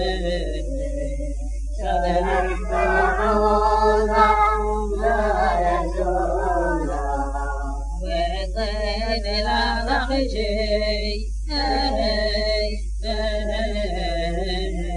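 Unaccompanied Yemenite Jewish song (shira) in the Sana'a style, chanted in long ornamented phrases with short pauses between them, over a steady low hum.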